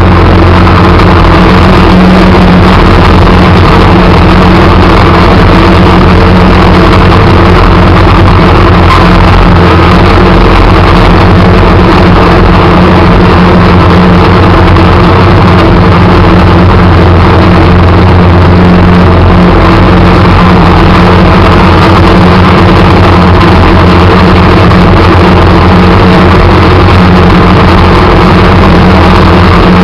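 Small engine of a snow-plowing vehicle running steadily at an even speed, loud and close to the microphone.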